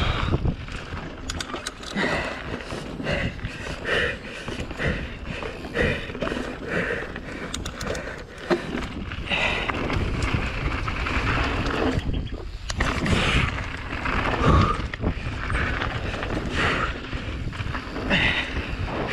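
Mountain bike ridden over a dirt trail, with wind buffeting a helmet-mounted camera's microphone and the bike rattling, plus the rider's hard breathing in short pulses about once a second.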